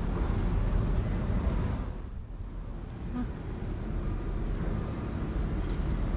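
Steady low rumble of outdoor street noise, dipping for about a second around two seconds in.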